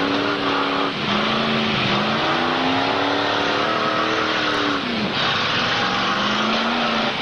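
Several demolition derby car engines revving hard, their pitch rising and falling again and again, over the hiss of wheels spinning against the arena floor.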